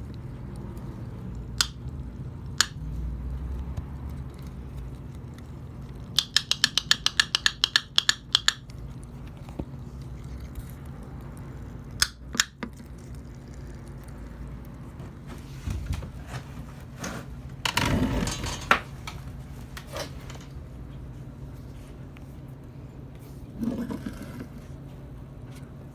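Aluminium Coca-Cola can making sharp clicking and popping noises: a few single clicks, then a quick run of clicks a little past six seconds in, with a longer crackle later on.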